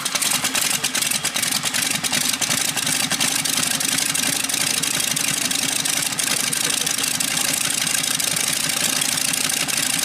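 Boeing P-12/F4B biplane's radial piston engine running steadily, with a rapid pulsing beat.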